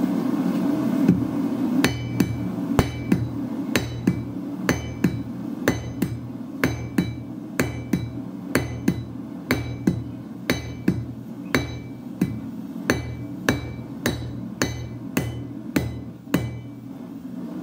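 Square-faced hand hammer striking a red-hot railway spike on a steel anvil as it is forged. From about two seconds in the blows come at roughly two a second, each with a short metallic ring.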